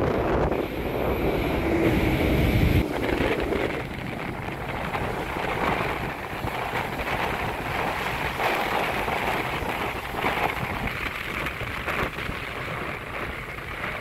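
Heavy surf churned up by a typhoon, breaking and washing over a rocky, pebbly shore in a continuous wash. Wind rumbles on the microphone for the first few seconds, then cuts off abruptly.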